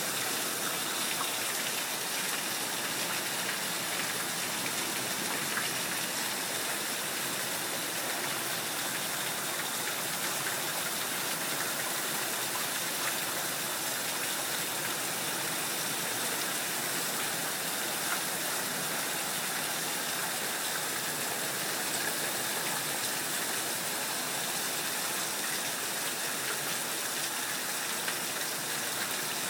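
Heavy rain pouring down steadily, an even hiss with faint scattered drop ticks.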